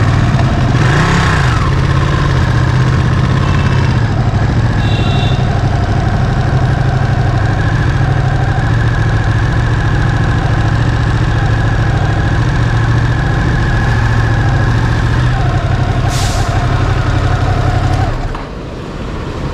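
Ducati Panigale 959's V-twin engine running steadily at an even, low pitch, then cutting off near the end.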